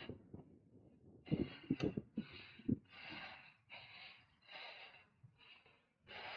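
A cyclist's hard, rapid breathing while pedalling uphill: puffs of breath a little over one a second, starting after a quieter first second. A few low thumps sound among the first breaths.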